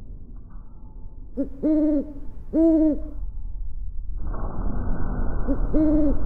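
Owl-like hooting: a short hoot followed by two longer ones, heard twice. The second time it comes over a steady rushing noise that starts about four seconds in.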